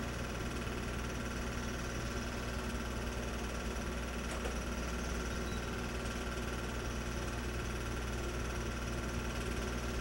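Home movie film projector running: a steady mechanical whir over a constant low electrical hum.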